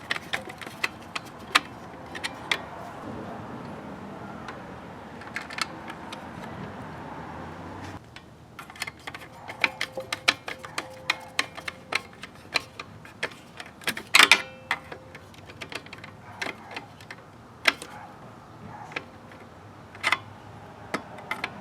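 Irregular small clicks, taps and light metallic clinks of hand work on an air-conditioner disconnect box: tools, wires and metal parts knocking against it, with a denser cluster of clicks about two-thirds of the way through.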